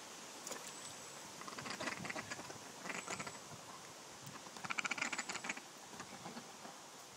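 Ducks quacking in three short, rapid, raspy bursts, the last and loudest about five seconds in.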